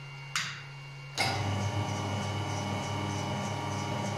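Electric meat grinder's motor and gearbox switched on at the push-button switch: a click, then about a second in the motor starts abruptly and runs steadily at fixed speed, with no frequency converter to ramp it up.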